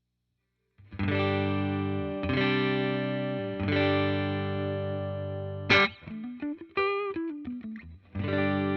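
Electric guitar played through a Dr. Z Maz 38 Senior Reverb 2x12 tube combo amp: three ringing chords let to sustain, a sharp pick attack and a short run of single notes, then another chord near the end.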